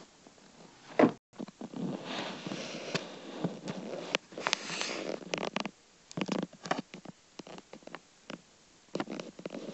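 Handling noise from a phone camera being picked up and turned around: a loud bump about a second in, then rustling and a run of scattered knocks and scrapes.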